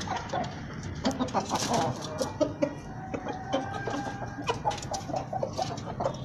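Aseel chickens clucking in short repeated notes, with one longer drawn-out call about three seconds in, among scattered sharp taps.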